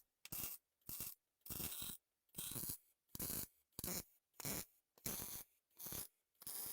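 Rhythmic hand strokes of a file or abrasive scraping metal gun parts, about ten short back-and-forth strokes with brief gaps between them.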